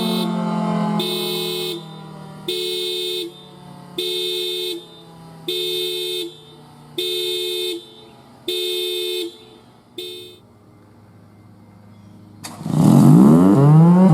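Federal Signal Thunderbolt 1003B tornado siren winding down, its low tone slowly falling and fading. Over it, a short pitched tone sounds in even pulses about every second and a half. Near the end the siren starts again with a fast rising wind-up.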